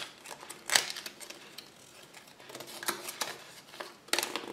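Small plastic toy bag crinkling and rustling in the hands as it is handled and opened, with scattered light clicks; the sharpest crackle comes about three-quarters of a second in, and a denser rustle near the end.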